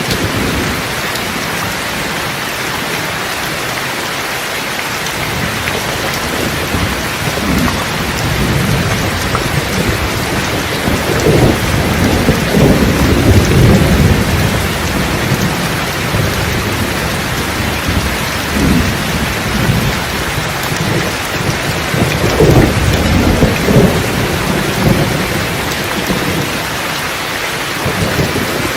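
Steady heavy rain with rolling thunder: two long rumbles, one building about ten seconds in and another past the twenty-second mark, each lasting several seconds over the constant hiss of the rain.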